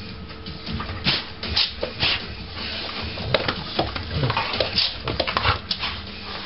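Dog and cat play-fighting: scuffling and rubbing with a busy string of irregular clicks and knocks from paws and claws on a wooden floor and rug.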